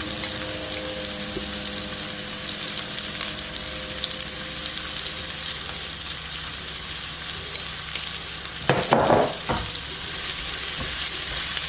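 Prawns sizzling steadily in oil in a nonstick pan, the water cooked off so they fry in the separated oil. About nine seconds in, a wooden spatula starts stirring and scraping them around the pan.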